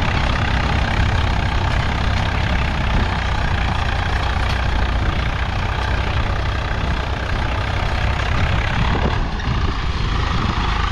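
Swaraj 855 tractor's three-cylinder diesel engine running steadily under load while it pulls a disc harrow through a field.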